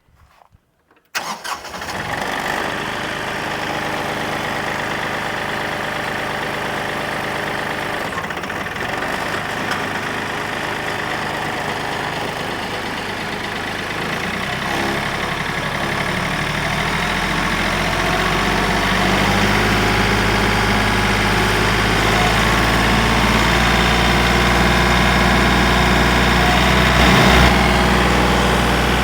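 Tractor diesel engine starts about a second in and runs steadily. From about halfway a deeper drone builds and the sound grows gradually louder as the tractor comes up toward 540 PTO speed to drive the Woodmaxx WM8H wood chipper.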